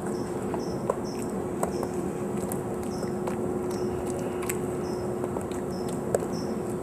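Dog licking its paw: irregular small wet clicks and smacks, a few louder ones, over the steady hiss and hum of a VHS camcorder recording.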